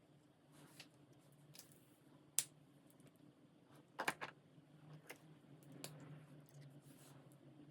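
Alcohol marker tips swishing softly across paper, with a few sharp clicks, the loudest a single click about a third of the way in and a quick double click near the middle. A faint steady hum runs underneath.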